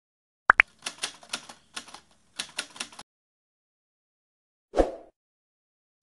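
Edited intro sound effects: two quick pops, then about two seconds of rapid keyboard-typing clicks, and a single softer thud near the end.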